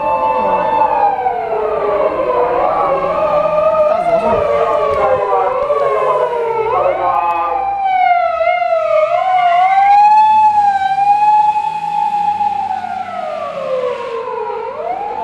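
Sirens of at least two Japanese emergency vehicles wailing together, their slow rising-and-falling tones out of step with each other. About eight seconds in there is a short run of quick up-and-down sweeps, and near the end one tone falls low before climbing again.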